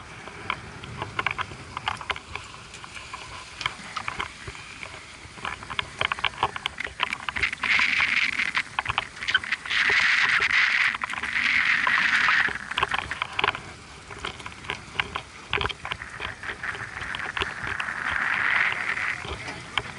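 A large spinning reel being worked during a tuna fight: runs of rapid clicking, broken by four louder buzzing bursts of a second or two each as line is pulled under load.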